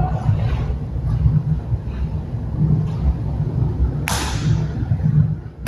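Aikido technique being performed: a steady low rumble, and about four seconds in one sharp swish-slap of bodies and cotton gi as the throw is applied.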